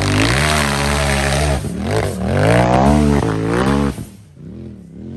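UTV buggy's engine revving hard under load in repeated surges, the pitch climbing and falling several times as it powers up the dirt hill and passes close by, then dropping away sharply about four seconds in.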